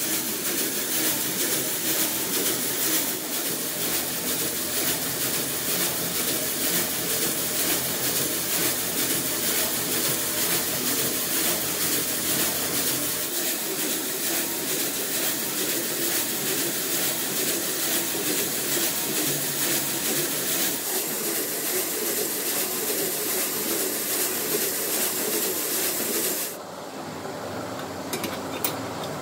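Steady mechanical noise of metalworking machinery running. The sound shifts in character partway through and drops off in level near the end.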